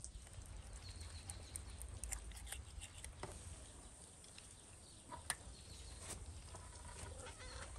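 Quiet, scattered clicks and taps of a knife and hands working a fish in a metal basin, over a low steady rumble, with one sharper click about five seconds in.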